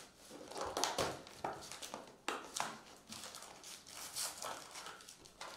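Plastic shrink-wrap and a cardboard trading-card hobby box being pulled open by hand: irregular crinkling of plastic and scraping of cardboard, with sharper rustles about one and two seconds in.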